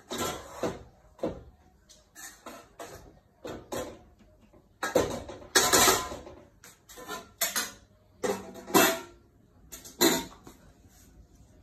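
American XL bully puppy chewing and tugging at a plush toy on a tiled floor: irregular rustling, scrabbling and knocks in short bursts, loudest around the middle.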